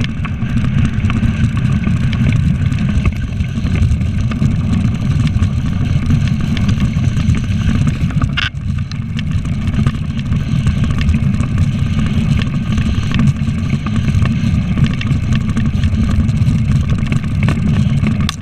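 Steady wind rumble on the microphone of a camera riding on a moving dog sled, with the sled's hiss over the snow trail; a short higher scrape about halfway through.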